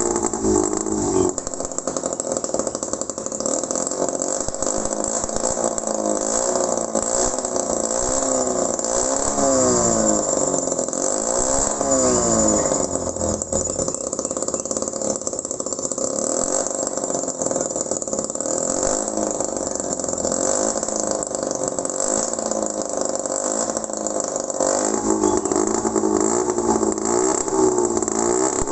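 Homemade mini two-stroke engine built from an old refrigerator compressor, running without a break; its speed swings up and down several times.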